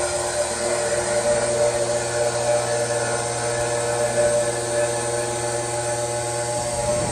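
Insert face mill on a Milltronics TRM 3016 CNC mill taking a light facing cut on a rough cast-iron casting: a steady whine of several tones with cutting hiss, fading near the end. The cut is barely skimming the casting, which sits at a slight angle because it is rough.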